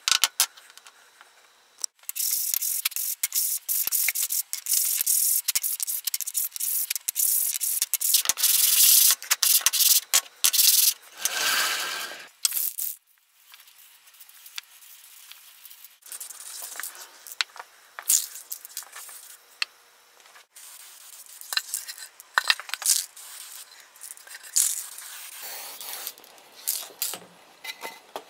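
Wooden cut-out letters being handled on a workbench: rubbing and scraping with light clacks. The scraping is loud for about ten seconds after the start, then gives way to quieter, scattered clicks and rubs.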